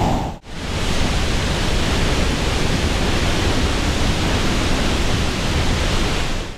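Monsoon-swollen waterfall rushing loudly and steadily, dense noise spread evenly from low to high, with a brief break about half a second in.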